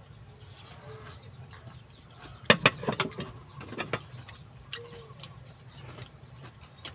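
Eating sounds at a meal of noodles and greens: a quick run of sharp clicks and knocks from a spoon against a plastic bowl and chewing, about two and a half seconds in, over a steady low rumble.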